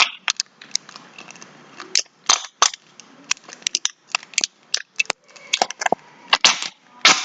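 Liquid glue sputtering out of a squeeze bottle, a string of irregular sharp pops and clicks as air spurts out with the glue, a sound likened to farting.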